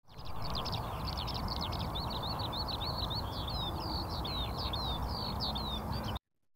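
Many birds chirping in quick, overlapping short calls over a steady low background noise. It cuts off suddenly about six seconds in.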